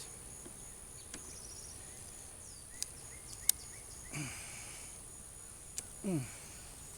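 A steady high-pitched insect drone in the background, broken by a few sharp clicks and two short falling grunts or breaths from a person.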